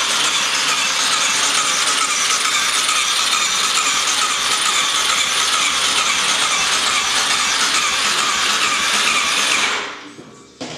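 Electric starter cranking the single-cylinder engine of a Suzuki DR-Z400 with a steady whirr, without the engine firing, and cutting off near the end. The engine has very low compression, about 3 bar, which the mechanics take to mean the cylinder head needs an overhaul.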